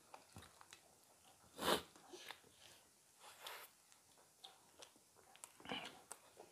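Close-miked eating by hand: soft chewing and small wet mouth clicks from rice and spicy chicken curry, with a sharp sniff about one and a half seconds in and two fainter sniffs later on.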